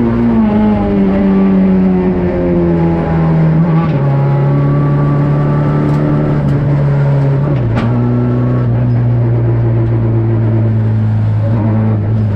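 Peugeot 208 R2 rally car's 1.6-litre four-cylinder engine heard from inside the cabin. The engine note falls as the car eases off, drops in two steps about 4 and 8 seconds in, and then runs steady at a lower pitch.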